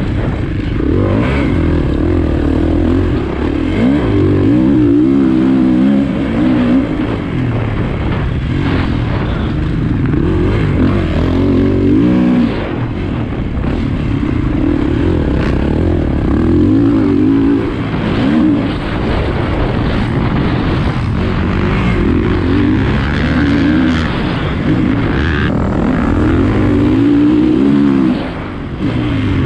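Motocross dirt bike engine heard from on board while riding, revving up and falling back again and again as the throttle is opened and closed through the gears. The sound dips briefly near the end.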